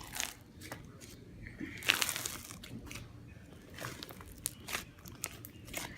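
Hands kneading and pulling a large mass of slime with dried-out, crumbly slime mixed in, giving irregular crackling and tearing clicks, with a louder burst about two seconds in.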